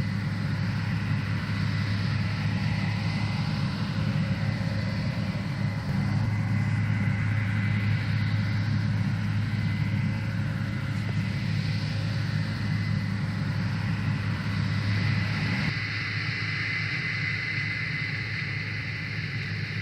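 Case IH 8120 Axial-Flow combine harvester running steadily, a deep engine drone with a steady high whine over it. About three-quarters of the way in the sound changes abruptly and becomes a little quieter.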